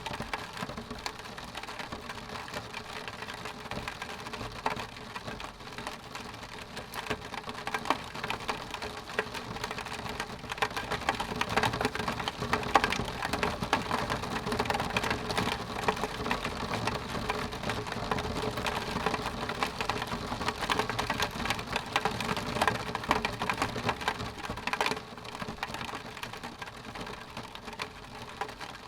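Rain falling on window glass: a dense, continuous run of small drop ticks. It grows heavier about ten seconds in and eases off again near the end.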